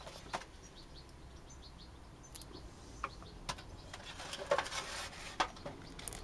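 Hands working cured orgonite pieces out of a silicone mould: scattered clicks and soft knocks of the hard resin-and-metal-shavings pieces against the mould and the sheet-metal tray, busiest near the end.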